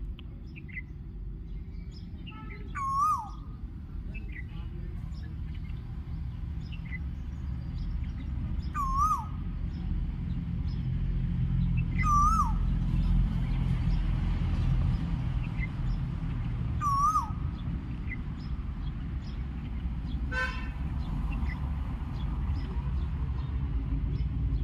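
Asian koel calling: four short, similar hooked calls, spaced roughly three to six seconds apart. Faint chirps of other small birds and one short harsh call about twenty seconds in can be heard over a steady low rumble.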